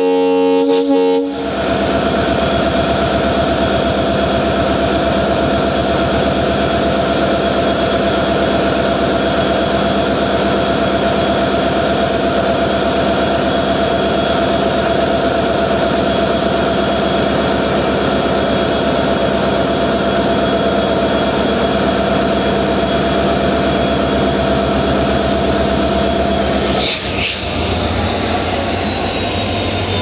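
WDP4D diesel-electric locomotive (EMD 710 two-stroke engine) pulling away under power at close range: a short horn blast right at the start, then the engine's loud, steady running with a high whine. Near the end the whine slides down in pitch as the locomotive passes and the coaches follow.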